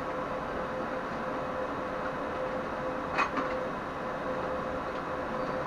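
Steady mechanical hum and hiss with a constant low tone, and a single click about three seconds in.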